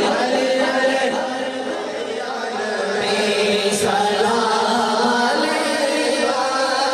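Male naat reciters singing a naat together into microphones, the voices unaccompanied and amplified through loudspeakers, with long held notes.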